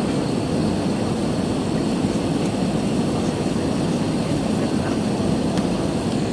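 Steady engine and airflow noise inside the cabin of an Airbus A320-214 airliner, its CFM56 turbofans running; an even rush strongest in the low-middle range, with no change in level.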